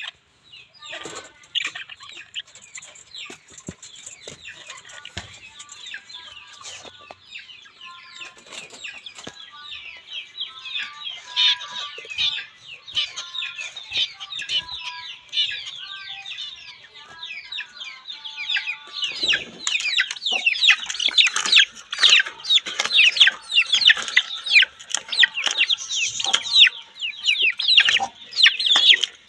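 Chatter of caged birds: budgerigars chirping and warbling, then young chickens clucking and cheeping, louder and denser in the last third.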